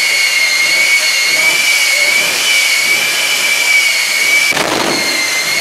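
Jet truck's turbojet engine running steadily at the line with a high, slightly wavering whine over a rushing hiss. A brief burst of rougher noise comes about four and a half seconds in.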